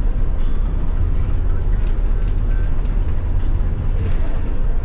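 Tour bus running on the road: a steady low rumble of engine and road noise.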